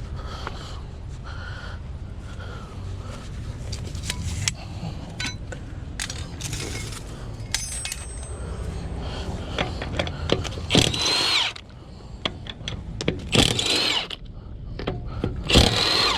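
Milwaukee cordless impact gun fired in three short bursts on the wheel's lug nuts, after several seconds of loose metal clinks and clicks from tools and nuts, over a steady low rumble.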